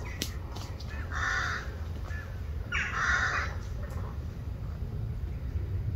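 A bird giving two harsh calls, the second about a second and a half after the first and louder, over a steady low rumble.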